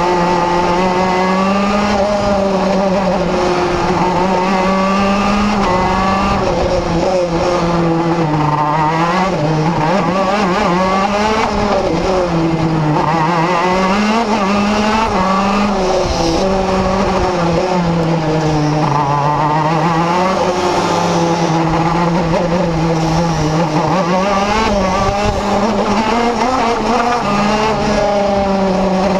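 Vortex RVXX 125cc two-stroke engine of a KZ2 shifter kart at racing speed. Its pitch climbs and drops again every few seconds as the kart accelerates down the straights and slows for the corners.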